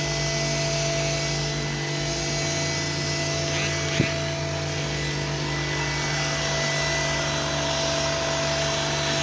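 A machine motor running steadily, with a high whine over an even noise and one sharp click about four seconds in.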